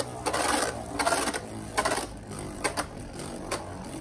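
Two Beyblade Burst spinning tops, Brave Valkyrie and Infinite Achilles, spinning and clashing in a plastic stadium: a steady whirring rattle broken by sharp clacks from repeated hits at uneven intervals.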